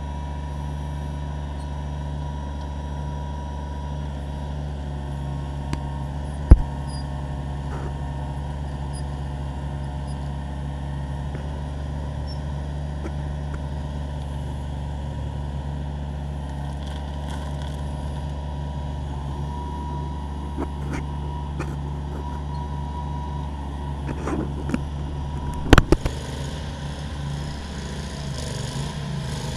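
Kubota compact tractor's diesel engine running steadily while its backhoe digs a trench, with a sharp knock about six seconds in and another near the end.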